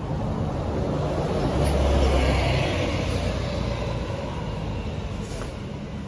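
Street traffic, with a city bus's engine rumbling close by, swelling about two seconds in and then slowly fading.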